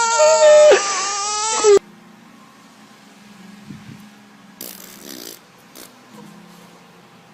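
A baby wailing loudly in a high, drawn-out cry that breaks off abruptly about two seconds in. Quiet room noise follows, with a brief soft rustle about five seconds in.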